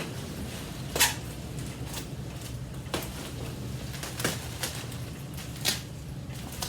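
Hands digging through polystyrene packing peanuts in a cardboard box: intermittent rustling and crackling, with sharper crackles about one, three, four and five and a half seconds in.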